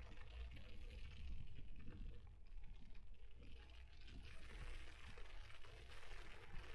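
Riding noise picked up by a camera mounted on the frame of an electric mountain bike: a low, fluctuating rumble of wind and tyres rolling, with no clear motor whine.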